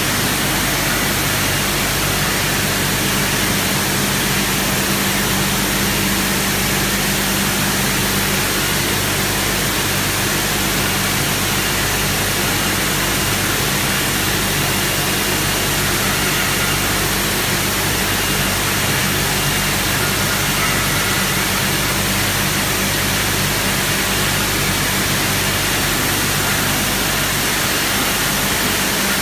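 Bottle inverting sterilizer line running: a steady, even machine noise with a constant low hum, from the drive motors and chain conveyor turning juice bottles upside down.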